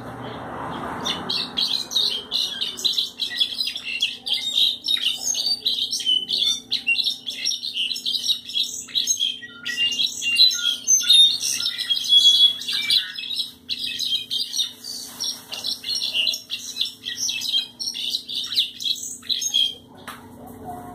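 A caged jilguero (brown-backed solitaire) singing a long, unbroken song of rapid, high trilled and chirping notes. It starts about a second in and stops shortly before the end.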